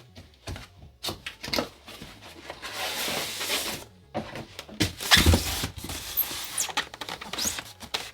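Objects being handled on a tabletop: scattered clicks and knocks, a rustle lasting about a second near the middle, and a heavier knock a little past halfway.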